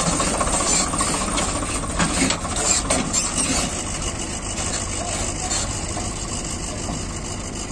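Swaraj 744 XM tractor's three-cylinder diesel engine running under load as it pulls a trolley fully loaded with soil, growing slowly fainter as the rig moves off.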